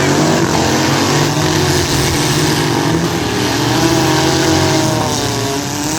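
Several demolition derby cars' engines running and revving together, their pitch rising and falling as they accelerate and back off.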